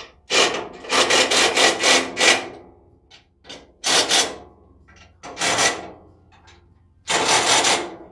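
Small cordless impact driver snugging down bolts in four short bursts, the first about two seconds long and stuttering, the others under a second each.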